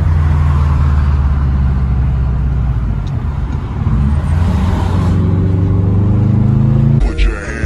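2015 Subaru WRX STI's turbocharged flat-four engine running as the car is driven, heard from inside the cabin with road noise. Its pitch climbs steadily in the second half as the car accelerates, and music cuts in near the end.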